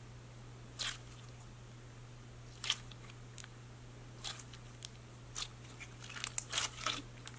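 Thick clear slime being squeezed and kneaded by hand, giving sporadic sticky clicks and pops that come faster near the end.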